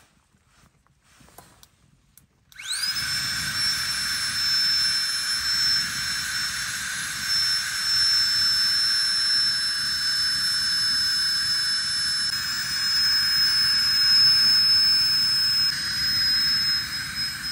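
Small handheld battery-powered blower fan spinning up with a quickly rising whine about two and a half seconds in, then running steadily with a high-pitched whine over a rush of air, blowing into a wood stove's open firebox to fan the fire.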